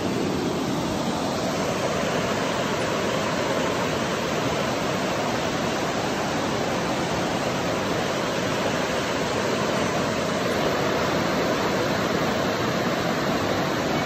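Steady rushing of a swollen river in flood, the water running high and rough through rapids.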